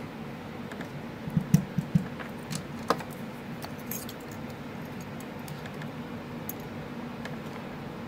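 Light metallic clicks and taps of a pick working inside a brass padlock. A short cluster of louder clicks comes about a second and a half in, then lighter scattered ticks follow.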